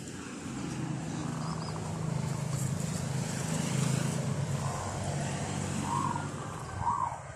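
A motor vehicle's engine hum swelling to a peak about four seconds in and then fading, as if passing by. A bird gives two short calls near the end.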